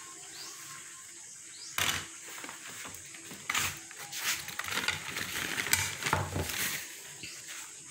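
Handling noises: a sharp click about two seconds in, then a few seconds of uneven rustling and light clattering.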